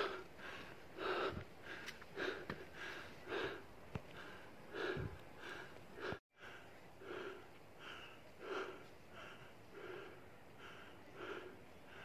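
Heavy, rhythmic breathing of a person out of breath from climbing a steep trail, close to the microphone, about two breaths a second, with a brief break about six seconds in.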